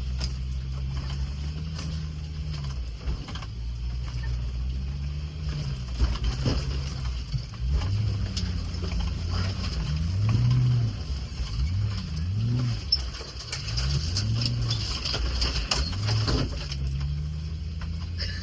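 Land Rover Discovery's engine running at low revs as it crawls over a rough off-road trail. The revs rise and fall again and again midway through, with occasional knocks and bumps from the vehicle.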